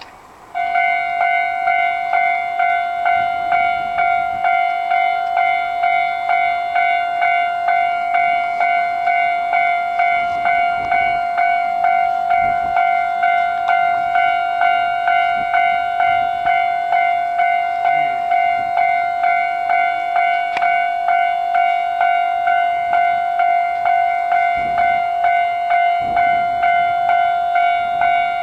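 Japanese level-crossing warning bell starts ringing about half a second in and keeps up a steady, rapid, regular clang, the signal that a train is approaching and the crossing is closing.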